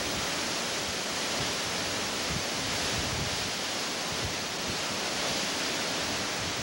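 Hurricane-force wind blowing steadily on a camcorder microphone as an even, unbroken rush of noise, with heavy surf mixed in.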